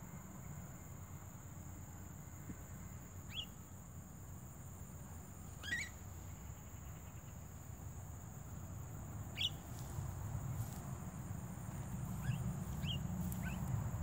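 Short, sharp rising calls of Javan mynas, one every few seconds and then three in quick succession near the end, over a steady high whine and a low rumble.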